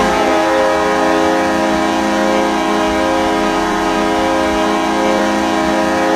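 The Peoria Rivermen's 1995 hockey goal horn sounding one long, steady air-horn blast with a rich chord of tones.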